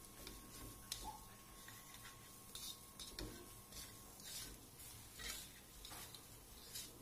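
A spatula scraping and stirring in a wok, tossing prawns through dry fried cereal crumbs. The scrapes are faint and irregular, coming every half second or so.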